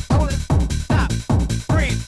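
Fast electronic dance music (techno): a hard kick drum about two and a half times a second, with synth tones gliding up and down in pitch between the beats.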